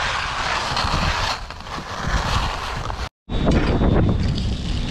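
Wind rushing over the camera microphone while skiing downhill. After a cut about three seconds in, a low mechanical rumble from the chairlift's loading conveyor, with a faint steady high whine.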